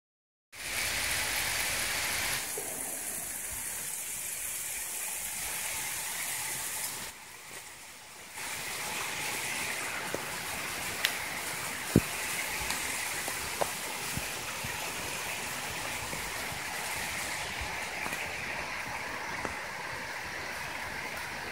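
Hail and rain pelting down on wet asphalt: a steady hiss, with a few sharp ticks of hailstones striking, the loudest about halfway through. It dips briefly a quarter of the way in.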